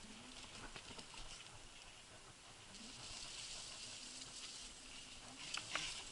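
Faint crackling and pattering of an electric scooter's tyres rolling over wet mud, with scattered small clicks and a brief louder cluster of them near the end.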